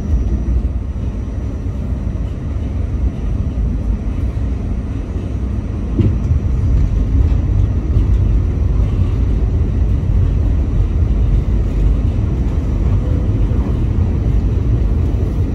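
New York City subway train running, a loud, steady low rumble heard from inside the car, with a single knock about six seconds in.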